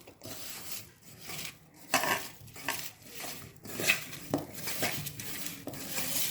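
Kitchen utensils clinking and scraping against dishes, with a few sharp clinks among irregular stirring and scraping.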